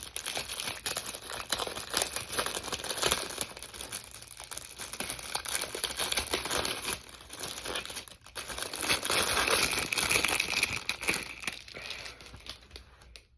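Crinkling and tearing of the protective wrapping as a new computer keyboard is unwrapped, with a short pause partway through and a louder stretch of crumpling after it.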